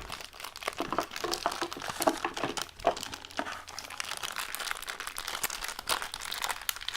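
Toy packaging crinkling and crackling in irregular bursts as it is handled and pulled at by hand to get it open.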